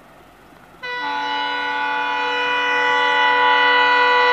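Train locomotive's horn sounding one long blast, several tones together, starting abruptly about a second in and held steady, growing slightly louder towards the end.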